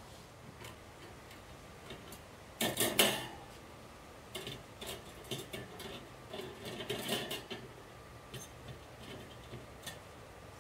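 Metal wire cooking racks of an oil-less fryer basket clattering and clinking as a rack is lowered into the basket. The loudest clatter comes about two and a half seconds in, followed by a few seconds of lighter clinks and taps.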